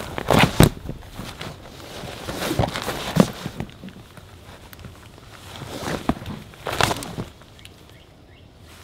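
Footsteps and the knocks and rustle of camping gear being handled, coming in three short spells of clatter.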